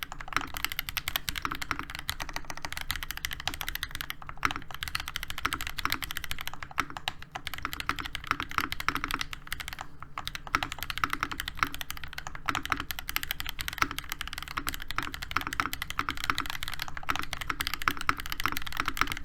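Continuous fast typing on a NovelKeys NK87 mechanical keyboard with a brass plate, hand-lubed Gateron Oil Kings linear switches and ABS Cherry-profile keycaps: a dense, even stream of keystrokes with a few brief pauses.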